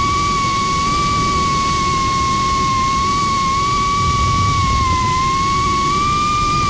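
FPV Cycle Cinesplore quadcopter's brushless motors and propellers whining steadily in slow flight, heard from the onboard camera, with a rumble of prop wash and air underneath. The pitch wavers gently and dips slightly about five seconds in as the throttle eases.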